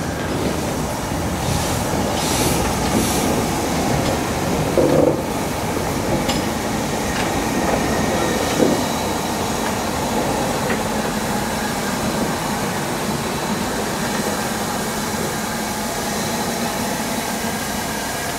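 LMS Stanier Black Five steam locomotive giving off a steady hiss of steam. A couple of short knocks come about five seconds in and again near nine seconds.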